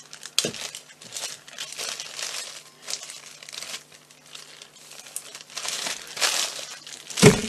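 Sealable plastic bag crinkling as it is handled and closed around leftover sugar paste, in irregular crackling bursts. A sharp thump near the end.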